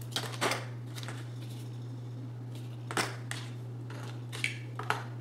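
Hands handling floral tape and cardstock flower parts: a few short rustles and scrapes, the loudest about three seconds in, over a steady low hum.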